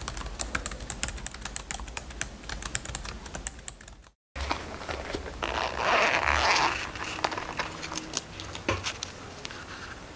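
Fingers typing quickly on a MacBook laptop keyboard, a fast run of light key clicks that stops about four seconds in. After a short break comes about a second and a half of loud rough rubbing noise, then a few light handling clicks.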